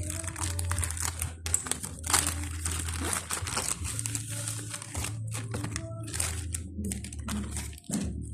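Packaging being handled and unwrapped: plastic wrap crinkling and rustling in irregular bursts, over a steady low hum.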